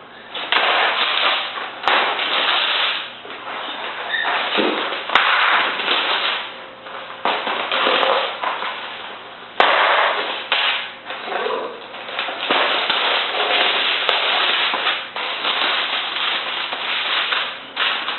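Packaging of an airsoft rifle being handled and opened: irregular crackling and rustling in bursts, with a few sharp clicks.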